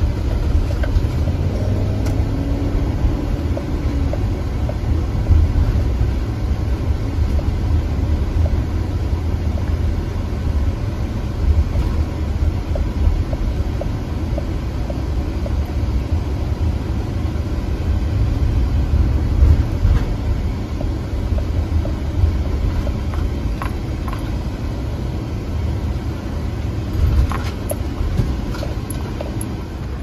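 Steady low rumble of a car's engine and tyres on the road, heard from inside the cabin while driving. A few light clicks near the end.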